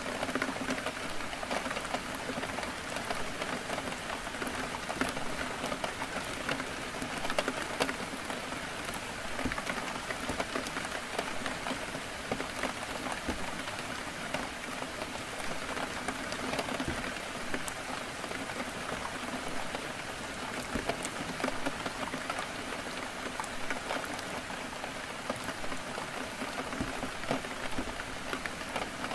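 Heavy rain falling steadily on a window, a dense even hiss with many small drop ticks against the glass.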